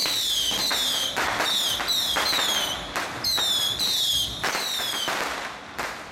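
A rapid string of whistling fireworks set off for a temple procession: about eight short whistles, each falling in pitch for about half a second, with sharp cracking bangs between them, tailing off near the end.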